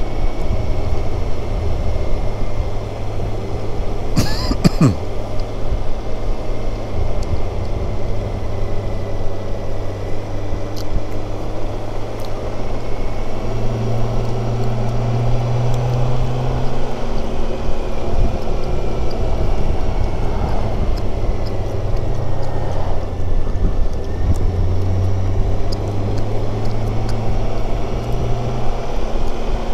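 BMW K1600GTL's inline-six engine running at road speed under heavy wind rush on a helmet-mounted microphone. The engine note swells and shifts a few times as the throttle changes. There is a short sharp noise about four seconds in.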